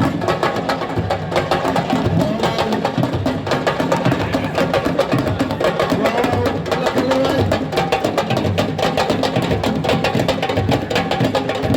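Sabar drums played fast and densely, a continuous stream of sharp strokes with no break.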